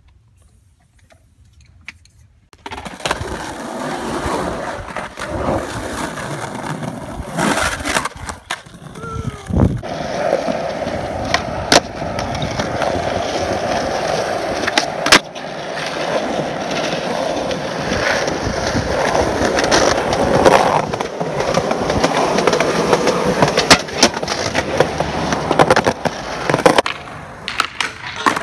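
Skateboard wheels rolling on pavement, starting about two and a half seconds in, broken by sharp clacks of the board popping and landing.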